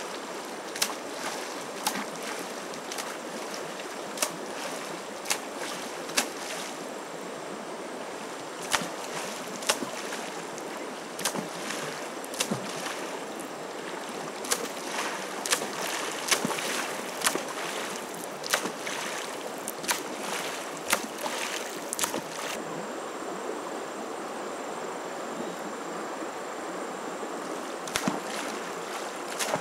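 A flowing river rushes steadily. Over it come many short, sharp splashes and slaps of water from a person wading through it and driving a bamboo pole through the surface. The splashes are frequent through the first two-thirds and sparse near the end.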